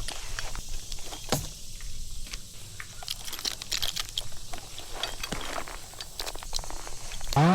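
Scattered light metallic clinks and rustling while a chainsaw sits idle, then near the end the chainsaw is revved and its pitch falls away.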